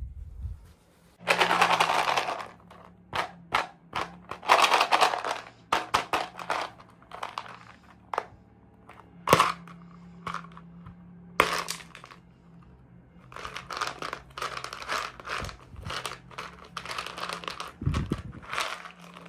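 Packaging of a toy unboxing being handled and opened at close range: several bursts of crinkling plastic or foil, with sharp clicks and snaps in between.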